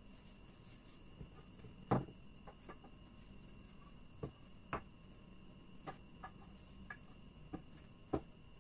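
Wooden beams knocking against each other and on the pile as they are picked up and set down, about ten scattered knocks with the loudest about two seconds in and another near the end. A faint steady high tone runs underneath.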